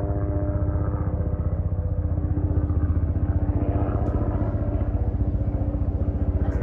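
Bell 206L-4 LongRanger helicopter flying by: rapid, even chop of the main rotor with a steady turbine hum, growing loudest about halfway through as it passes.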